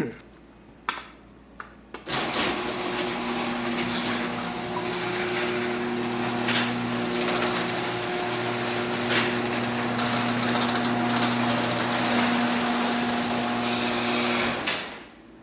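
Liftmaster 2265-267 chain-drive garage door opener closing the door: after a few clicks, its motor and chain drive start about two seconds in, run steadily with a steady hum, and stop just before the end as the door finishes closing.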